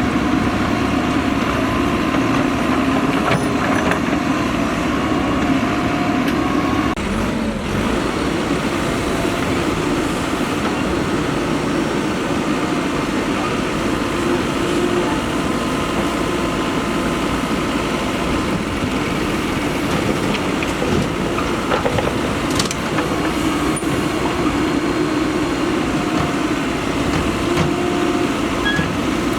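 Diesel engine of a Mahindra EarthMaster SX backhoe loader running steadily under work while loading mud, with a couple of short knocks, one about seven seconds in and one about twenty-two seconds in.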